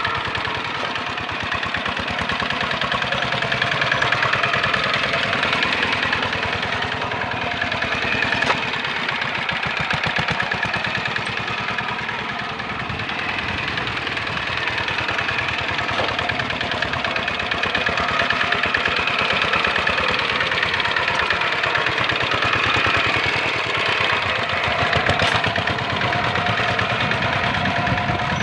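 Single-cylinder Dongfeng diesel engine of a Quick Impala hand tractor running steadily under load as the tractor ploughs through a flooded rice paddy, with an even, rapid firing beat.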